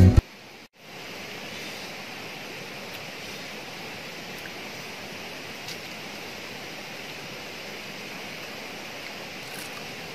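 Steady rushing of running water from a forest stream, an even noise with no rhythm. Guitar music cuts off at the very start.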